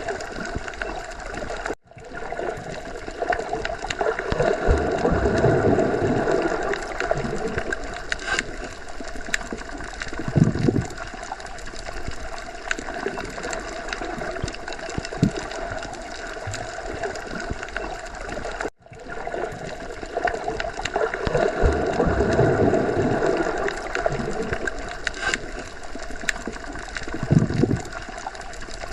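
Underwater ocean ambience: a steady muffled wash of water with gurgling and slow swelling surges. The loop drops out for an instant twice, about seventeen seconds apart.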